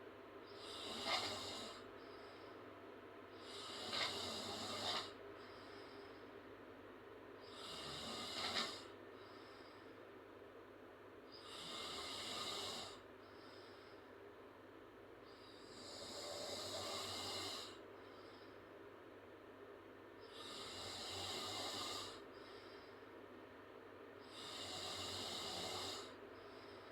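A girl snoring through an open mouth. Seven breathy swells come about every four seconds, each lasting one to two seconds, and the first few have a brief sharper spike at their peak.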